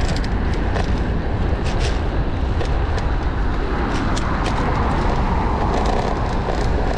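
Steady rush of wind on the microphone of a moving bicycle, over city traffic, with scattered light clicks.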